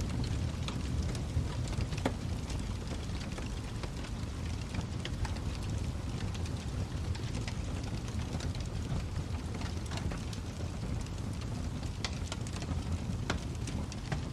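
Wood fire in a fireplace crackling, with irregular sharp snaps and pops over a steady low rumble of the flames.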